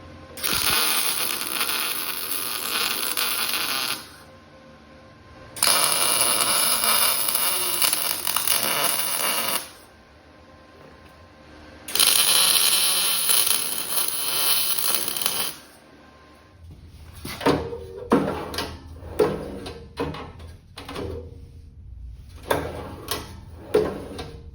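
Metalworking at the bench: three steady hissing bursts of about four seconds each with short pauses between, then a quick run of light metal clicks and knocks as parts are handled and fitted.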